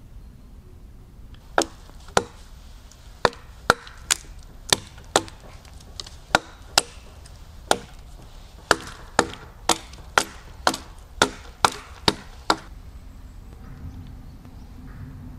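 Hatchet chopping deadwood: about twenty sharp blade strikes into wood, roughly two a second, stopping a couple of seconds before the end.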